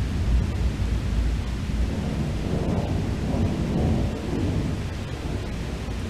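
Thunder rumbling in a long, deep roll that swells again a few seconds in and then slowly fades, over a steady hiss of heavy rain.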